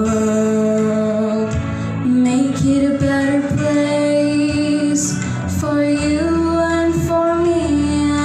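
A young girl singing long held notes over a recorded backing track, the melody moving in slow steps.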